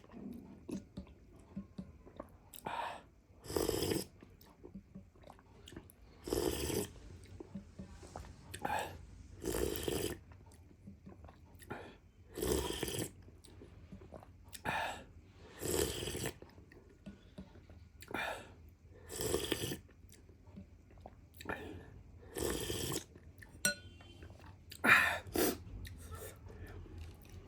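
Repeated loud slurps of hot, spicy chicken soup, about a dozen separate sips every two to three seconds, each lasting under a second.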